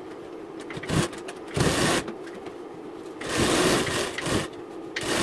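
Sewing machine running in short bursts as it stitches a blouse's side seam: a half-second run, a longer run of about a second, then it starts again near the end.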